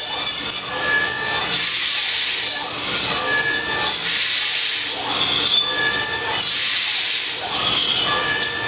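CNC router spindle running at high speed while a small bit cuts a block in repeated passes. The hiss of the cut swells and fades about every two and a half seconds, with a brief steady whine recurring on the same cycle.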